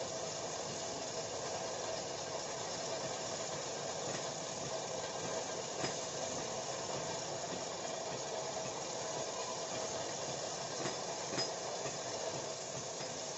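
Pillar drill press running steadily, its motor humming at one even pitch as the bit bores into a round piece of wood, with a few small clicks.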